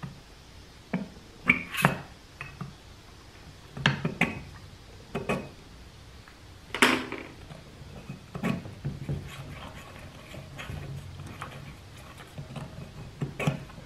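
Irregular metallic clicks and knocks of hand work on a transmission clutch retainer, a small pick tool against the metal and the part being handled. The sharpest clank, about seven seconds in, rings briefly.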